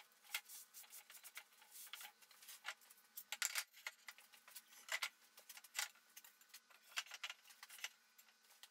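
Faint, irregular light clicks and taps of aluminium extrusion profiles and small aluminium brackets being handled and set down on a wooden workbench top.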